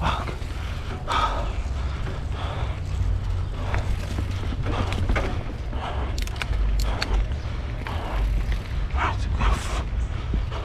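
Nukeproof Scout 290 hardtail mountain bike riding over a rooty dirt trail: a steady low rumble of tyres and wind on the microphone, with short clicks and rattles from the bike over bumps and the rider's breathing now and then.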